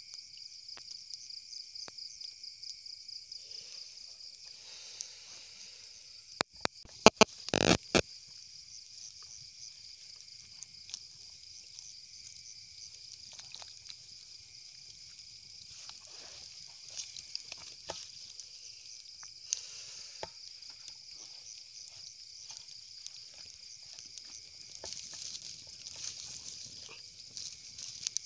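Night insects, crickets, trilling in a steady pulsing high chorus. A burst of loud sharp clicks and knocks comes about seven to eight seconds in, and the wood campfire crackles faintly now and then later on.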